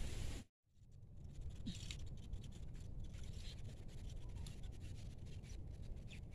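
Wind rumbling on the microphone, with faint light scratching and clicks over it; the sound cuts out completely for a moment about half a second in.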